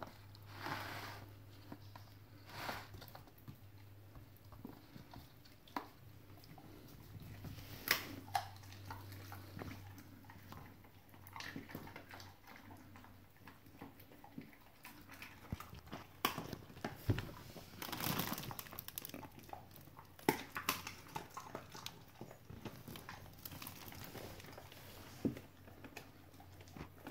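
A husky chewing and biting at a rotisserie chicken, with irregular crunches and clicks, a cluster of louder ones about two-thirds of the way through. A faint steady low hum sits underneath.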